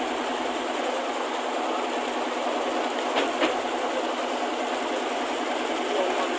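Steady running noise of a fishing boat's engine and deck machinery, with two sharp knocks a fraction of a second apart about three seconds in.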